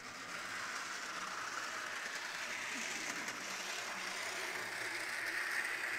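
Bachmann HO scale DeWitt Clinton model train running along the track: a steady whir from the small electric motor and gearing in the tender, with the wheels rattling on the rails.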